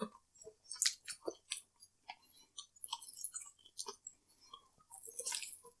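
Close-up wet chewing and lip smacking while eating sauce-covered chicken wings: quiet, irregular clicks and smacks, a little busier near the end.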